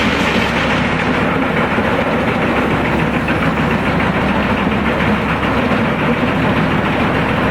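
Pezzolato PTH 1300/1500 drum wood chipper with its 1200 HP Caterpillar engine running loud and steady, a continuous dense mechanical drone.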